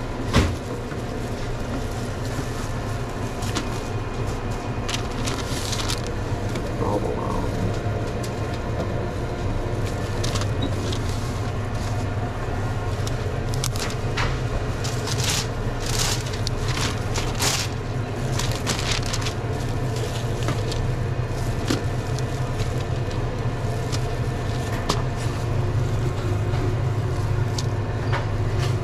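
Steady low hum of restaurant equipment behind a sandwich counter, with scattered light clicks, knocks and rustling from sandwich-making. A sharp click comes just after the start and a cluster of knocks falls about halfway through.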